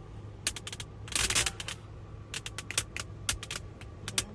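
Irregular sharp electrical crackling and clicking inside a Li Auto car's cabin, with a denser hissing crackle about a second in, over a low steady hum. The owner calls it an electrical-leakage noise, which the maker puts down to a fault in the car's entertainment module.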